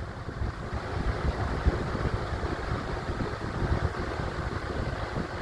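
Vintage Emerson Electric 20-inch reversible box fan running on high in reverse (exhaust) direction: a steady rush of moving air with a fluttering low rumble.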